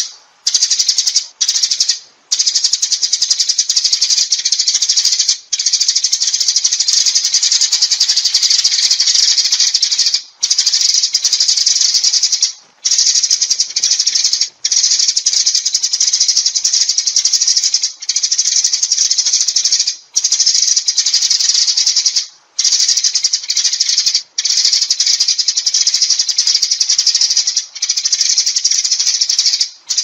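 Eurasian tree sparrows chirping in a dense, continuous chatter of high calls: a flock-gathering call. It breaks off for short pauses every few seconds.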